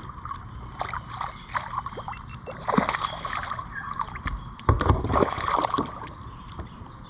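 Small largemouth bass splashing at the water's surface as it is pulled up and lifted out on the line, with two louder bursts of splashing about three and five seconds in.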